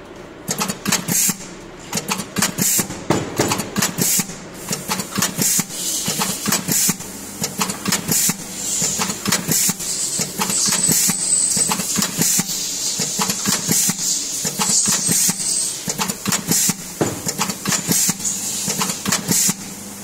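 O-ring assembly machine running: a rapid, irregular clatter of clicks and knocks from its mechanism over a steady hum and a faint high whine.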